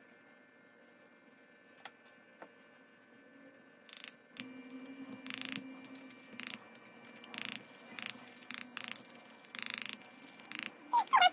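Pressed powder being packed into a small round metal pan: a couple of faint taps from the spatula, then from about four seconds in a series of short scraping, grinding strokes as a press tool is pushed and twisted against the powder and the pan rim, ending with a louder short rising squeak.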